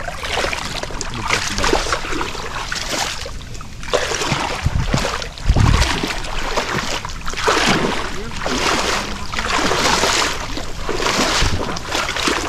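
Water sloshing and splashing around legs wading through a shallow, muddy creek, in repeated surges about once a second, with a low thump about five and a half seconds in.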